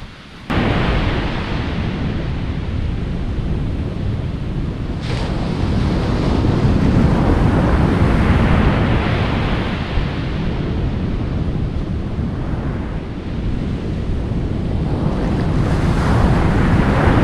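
Ocean surf breaking and washing up a sandy beach, with wind buffeting the microphone. The wash swells and eases in slow surges, cutting in abruptly about half a second in.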